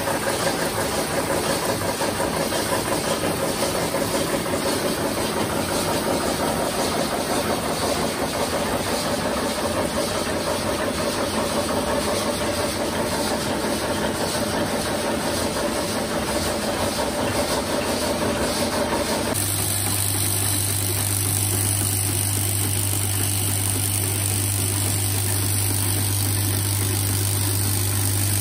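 Screw-making machine running with a fast, even clatter as screws drop from its chute into a metal tray. About two-thirds of the way through the sound cuts to a vibratory bowl feeder: a steady low hum with screws rattling around the steel bowl.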